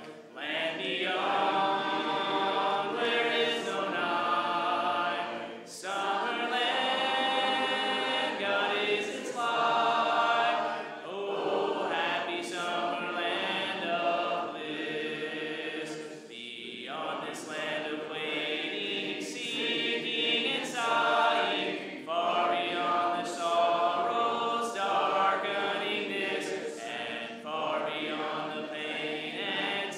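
Congregation singing a hymn a cappella in several voice parts, without instruments, in phrases with short breaths between them.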